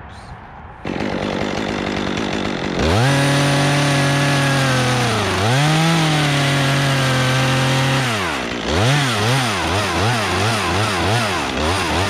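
Chainsaw revved to full throttle about three seconds in, cutting into the pin oak's top. Its pitch sags once and recovers as it loads in the wood. Near the end the throttle is blipped up and down about twice a second.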